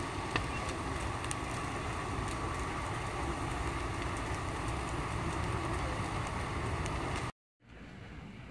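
Steady low engine-like rumble with a faint steady hum, under scattered faint sharp pops from the burning gas-canister lorry. The sound drops out completely near the end, then returns quieter.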